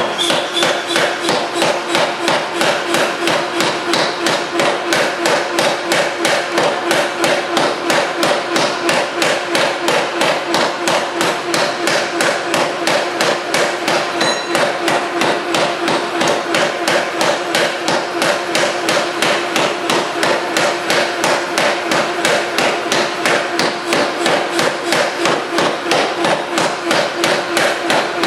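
3B Nazel self-contained air forging hammer pounding a hot stainless steel billet: the 265 lb ram comes down in a steady, rapid run of heavy blows, several a second, over the machine's steady hum.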